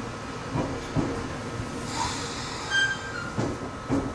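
Running noise inside a moving local electric train, with wheels clicking over rail joints. A brief high-pitched wheel squeal comes about two to three seconds in.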